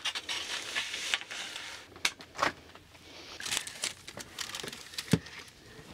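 Parchment paper crinkling and rustling as a dough log on it is lifted and slid onto a refrigerator shelf, with a few short clicks and knocks of handling.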